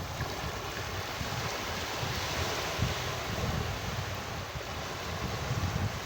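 Ocean surf washing and hissing, swelling a couple of seconds in, with wind buffeting the microphone as a low rumble.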